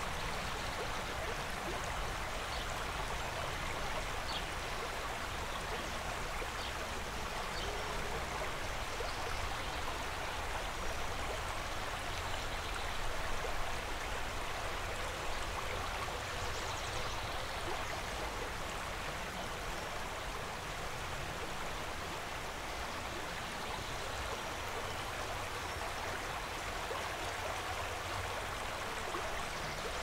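A small stream running and splashing over rocks, a steady, even rush of water.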